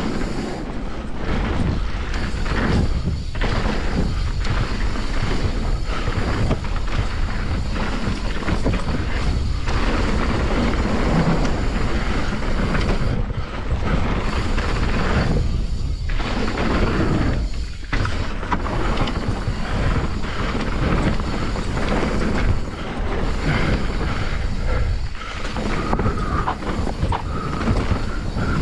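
Wind rushing over a chest-mounted GoPro's microphone, mixed with mountain bike tyre noise on packed dirt, as the bike rides down a jump trail at speed. The noise is loud and steady, dropping away briefly a few times.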